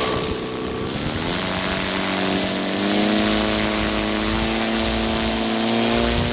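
Twin flat 'pancake' brushless outrunner motors spinning propellers on a hand-launched foam-board plane, a steady multi-tone whir. The pitch climbs about a second in, then holds, over a hiss of air rushing past the plane-mounted microphone.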